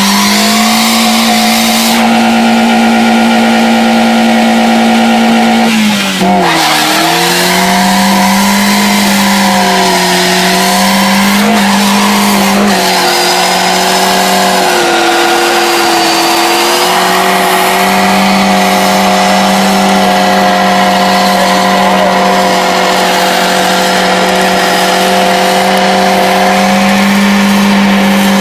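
A car engine held at high, steady revs in a burnout, deliberately run flat out to blow it, with tires squealing. About six seconds in the revs drop sharply and climb straight back, then waver a few times before holding steady again.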